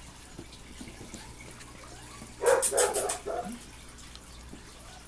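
Bull terrier puppy giving a quick run of three or four short barks about halfway through.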